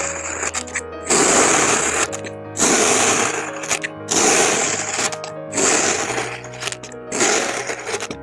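Kinetic sand crunching in gritty, hissing bursts about a second long, repeating roughly every second and a half, over background music.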